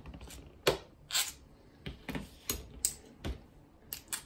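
Irregular light metal clicks and knocks, about ten, as a threaded bearing press is unscrewed from a bicycle front hub and its rod and end pieces are set down on the table.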